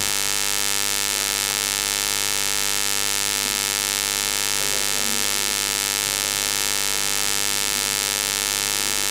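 Steady electrical mains hum and buzz from the public-address sound system, unchanging throughout, with no voice coming through. The loudspeaker setup has a fault.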